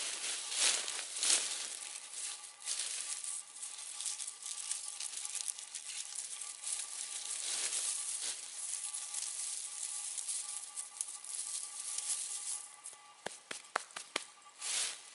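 Campfire burning: a hiss that swells and fades, with crackling and a few sharp pops near the end.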